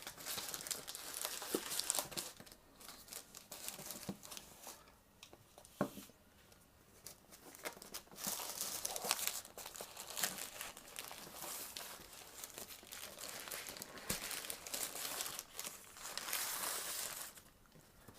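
Packaging being unwrapped by hand: plastic and paper crinkling and rustling in irregular bursts, with a few sharp clicks and tearing sounds, as a boxed hot air rework station is unpacked.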